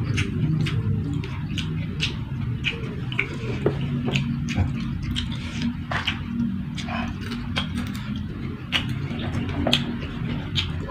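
Close-miked eating: chewing and mouth smacks with many irregular crisp clicks, over a steady low hum.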